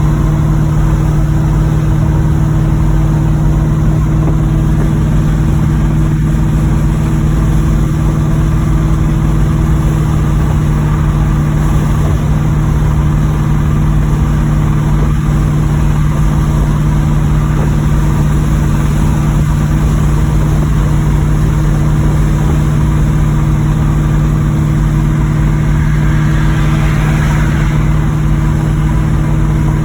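1986 Chevrolet Monte Carlo SS's V8 running at a steady pace with a constant low drone. The engine has a rod knock in its bottom end, as the owner reports.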